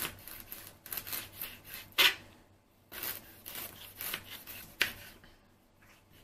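Knife cutting fresh ginger root into small pieces on a plastic cutting board: a run of short slicing strokes through the root, with sharper knocks of the blade on the board about two seconds in and again near five seconds.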